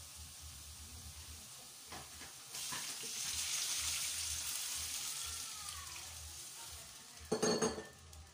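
Ground pork with onion and garlic sizzling in hot oil in a nonstick wok; about two and a half seconds in, water is poured into the hot pan and the sizzle swells into a loud hiss that slowly dies down. Near the end comes a short loud clatter, the loudest moment.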